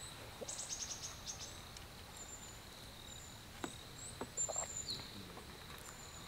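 Quiet forest ambience with faint, high-pitched chirps and short calls from birds and insects. About two-thirds of the way through there are a few soft clicks and a short sip as a mug is drunk from.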